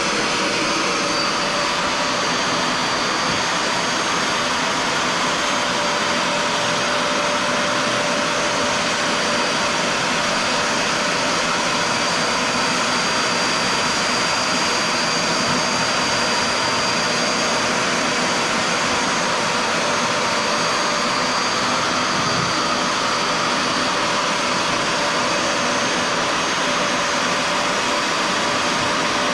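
Bissell SpotClean portable carpet cleaner running, its suction motor a steady rushing noise with a high whine as it extracts wet cleaning solution from carpet through a hand attachment.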